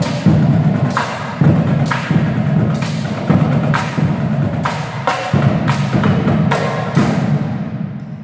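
Percussion-heavy ensemble music: a string of accented hits, about one to two a second, each ringing on with pitched tones, the level easing off near the end.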